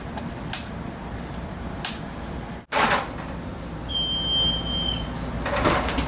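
Merrychef speed oven being switched on after a control-board repair: a few sharp clicks, then a single electronic beep lasting about a second, four seconds in, followed by a brief rustling knock near the end.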